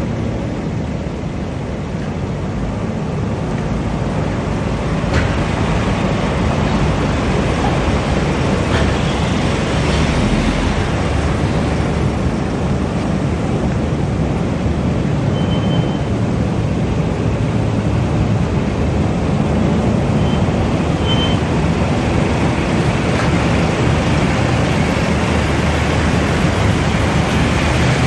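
Motor hearse moving slowly, its engine giving a steady low rumble with road noise.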